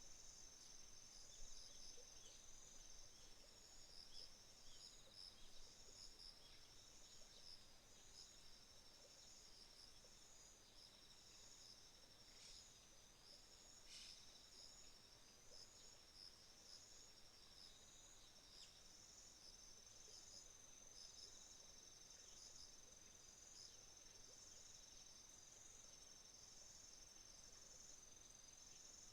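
Faint chorus of autumn insects: several high-pitched trills overlapping, some steady and some in even pulsed chirps. There is one short click about halfway through.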